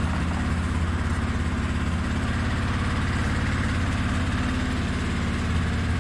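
A quad (ATV) engine idling steadily with the choke on, just after a cold start.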